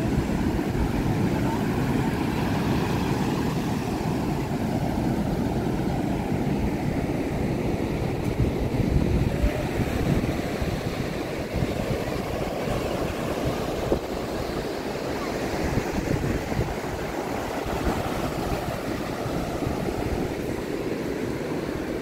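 Surf breaking and washing up on a sandy beach, a steady rushing noise, with wind gusting on the microphone.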